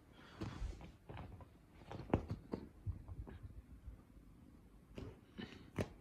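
Kitten pouncing on and batting a feather wand toy against a corduroy sofa: irregular soft thumps and rustles of feathers and fabric, the loudest about two seconds in and near the end.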